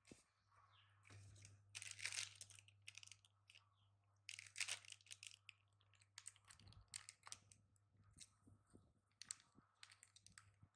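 Faint crinkling and rustling, with two louder bursts about two and four and a half seconds in, scattered small clicks and a steady low hum underneath.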